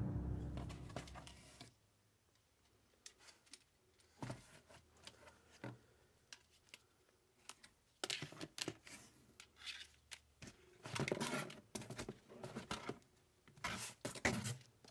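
Tail of eerie music fading out in the first second or two. Then quiet, scattered clicks, knocks and rustles of someone rummaging through cardboard boxes and handling a folder, in small clusters toward the end.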